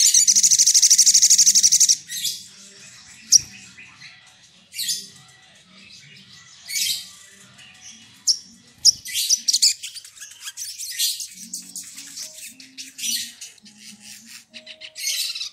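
Sogok ontong (sogon) singing in full voice: a loud, rapid, high trill for about the first two seconds, then a string of separate sharp, high chirps.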